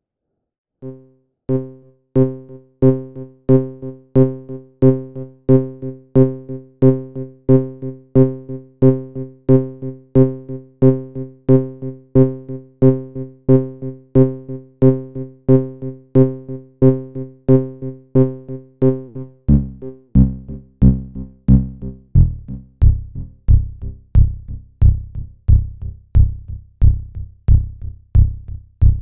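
DIN Is Noise software synthesizer voice playing a low note near C, chopped by its gater into a steady pulse of about one and a half notes a second, each with a sharp attack and quick decay. About two-thirds of the way through, the pitch drops lower while the pulse keeps going.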